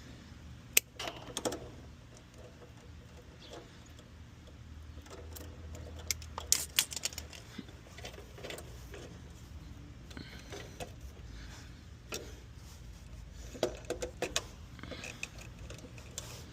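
Scattered light clicks and metallic clinks of hand tools and wire terminals being handled while wiring up an air-conditioner contactor, over a low steady hum.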